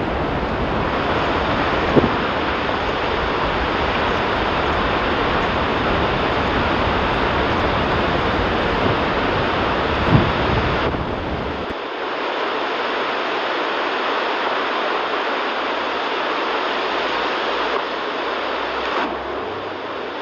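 Steady, loud rushing noise of the outdoor sound with glacier footage, with two short thumps about two and ten seconds in. About twelve seconds in, the deep rumble drops away and leaves a thinner hiss.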